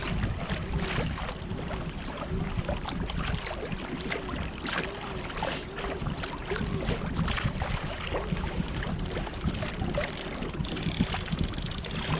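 Lake water lapping and slapping against a trolling kayak's hull, with a faint whine that rises and falls in a steady rhythm, a little under twice a second.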